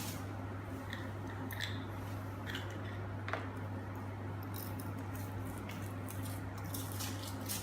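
Light handling noises, scattered small clicks and crinkles from a toy and its wrapping being handled, over a steady low hum.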